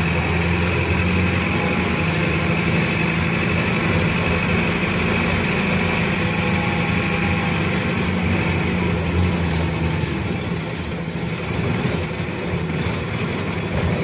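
Bus engine running under light load in second gear, heard from the driver's cab. The steady engine hum drops off about ten seconds in as the driver eases off the throttle.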